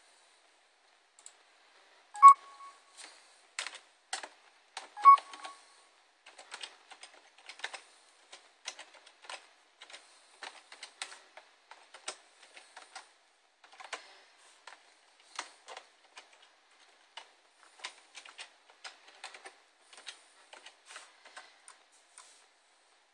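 Typing on a computer keyboard: irregular keystroke clicks for about twenty seconds, with two much louder clicks early on, as a username and password are entered.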